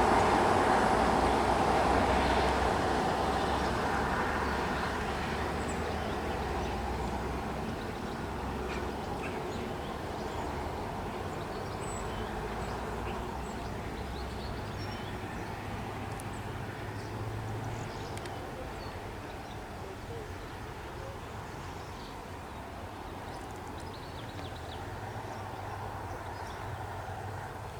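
A diesel train on the rail line fades away as it moves off, its rumble dying down over the first several seconds and leaving a low engine hum in the distance. Birds chirp faintly now and then.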